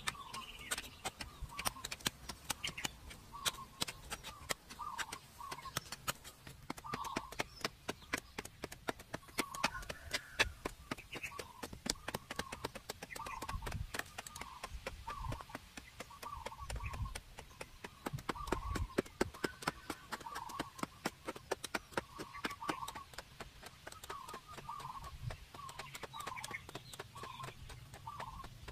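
Rapid, irregular tapping clicks throughout, with short bird calls repeating about once a second and a few dull low thumps.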